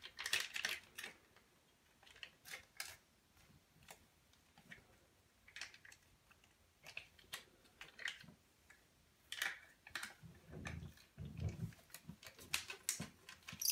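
Faint crinkling and scattered clicks as a small sachet of polishing compound is handled and torn open by hand, with a few dull bumps near the end.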